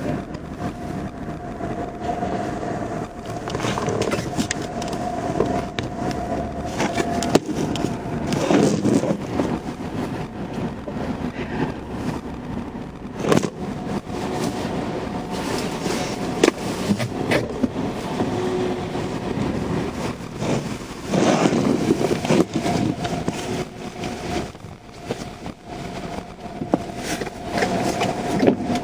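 Car cabin noise while driving slowly on wet, partly flooded streets in the rain: steady engine and tyre-on-water hiss with a faint hum, and scattered clicks and knocks.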